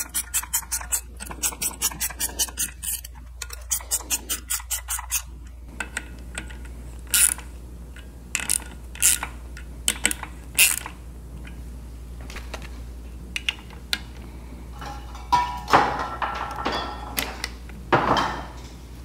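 Ratchet wrench clicking in quick runs, about four or five clicks a second, as the clutch spring bolts are tightened. Then come scattered single clicks and knocks, and a short metallic clatter near the end.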